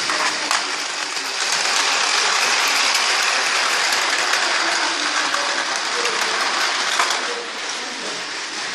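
Battery-powered Tomica toy train running along plastic track, its small motor and gears whirring and rattling, louder as it passes over the bridge, then easing off after a click about seven seconds in.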